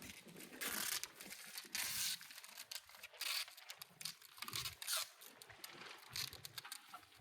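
Boat's shrink-wrap plastic cover crinkling and rustling in irregular bursts, the loudest about one, two and five seconds in.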